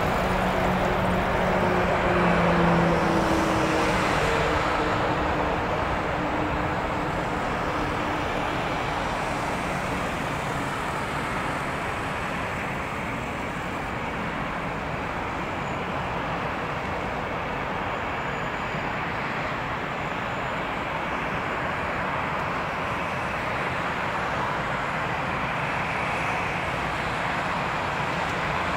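Airbus A319's twin CFM56 turbofan engines at takeoff thrust: a steady jet roar through the takeoff roll and climb-out, the aircraft moving away. A low engine hum drops slightly in pitch over the first few seconds.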